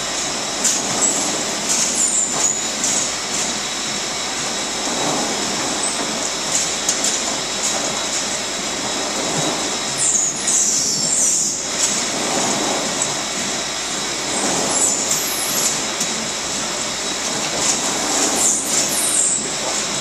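Steady machinery noise from winery grape-handling equipment, a forklift tipping a bin of white grapes onto a receiving conveyor, with short high squeals about halfway through and again near the end.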